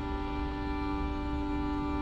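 Music: a steady held chord of several sustained tones over a low rumble.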